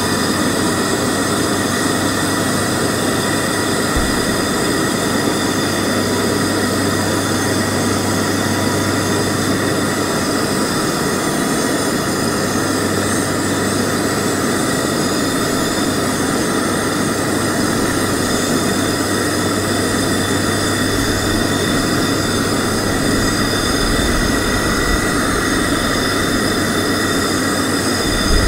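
Camp Chef Everest propane stove burner running at full flame under a saucepan of water, a loud, steady rushing noise as the water heats toward a boil.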